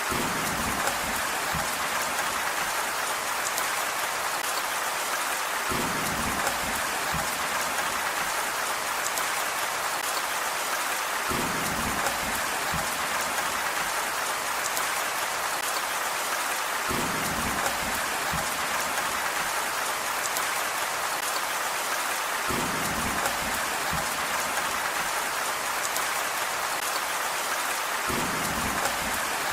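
Steady rain hiss. A soft low rumble comes back regularly, about every five to six seconds.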